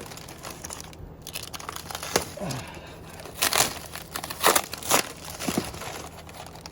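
Cardboard box packaging being torn and crumpled as it is pulled off a new anvil, in several loud rips and rustles through the middle of the stretch.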